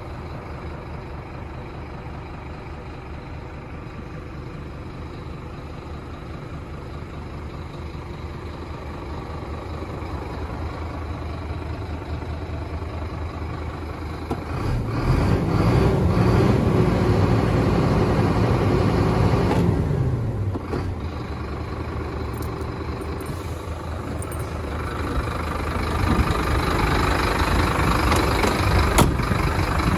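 Scania G270 truck's diesel engine idling, heard from the cab. About halfway through the engine note climbs and falls back over some five seconds, like a brief rev, then returns to idle and gets louder again near the end.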